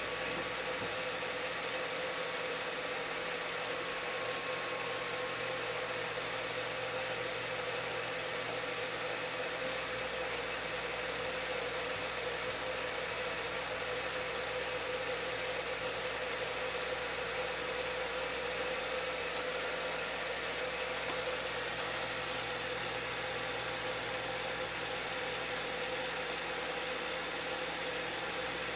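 Steady, unchanging mechanical whir with hiss and a constant hum.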